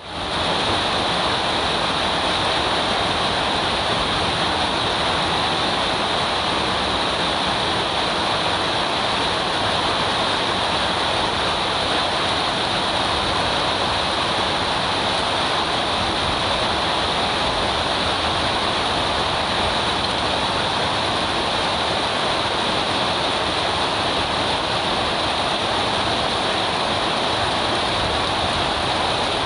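Steady rush of flowing water, even and unbroken, fading in during the first half second.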